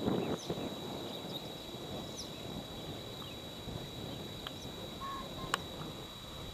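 Open-field ambience: a low rumbling noise on the microphone, loudest in the first half second, with faint, high, short falling bird chirps every second or so and a single sharp click about five and a half seconds in.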